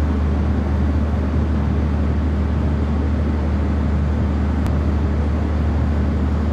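Steady low mechanical hum with a rumbling noise underneath, unchanging throughout, and one faint click about four and a half seconds in.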